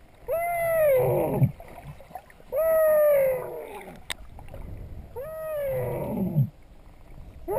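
A swimmer's voice making three long wailing calls underwater, each rising briefly and then sliding down in pitch, the noise swimmers make to attract dusky dolphins. A single sharp click comes between the second and third calls.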